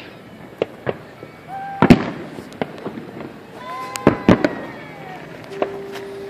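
Firework shells bursting: a run of sharp bangs, about eight of them, the loudest about two seconds in and another pair a little after four seconds, with gliding pitched tones between them.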